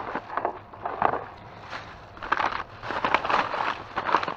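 Crinkling and rustling of a plastic trash bag being torn open and rummaged through, in irregular crackly strokes.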